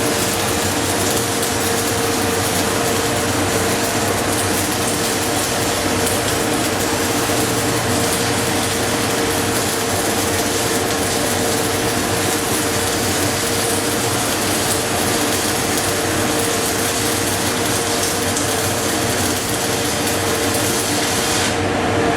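Stick welding arc from an LG-40Y inverter welder, crackling steadily as an electrode burns through a continuous bead, with a steady tone underneath; the rod burns smoothly because the machine supplies the higher open-circuit voltage it needs. The arc breaks off near the end.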